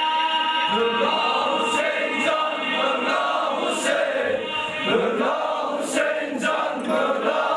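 A group of men chanting a Shia mourning lament (nauha) for Imam Hussein in unison, the voices taking up the line about a second in, with sharp slaps at intervals from hands striking chests.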